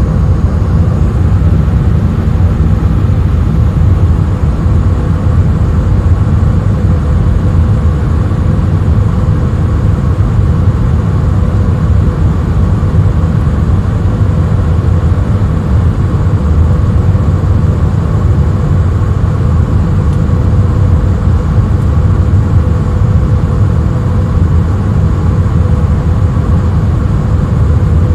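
Jet airliner cabin noise in flight: the steady, deep sound of the wing-mounted turbofan engine and rushing air, heard inside the cabin, with faint steady tones above it.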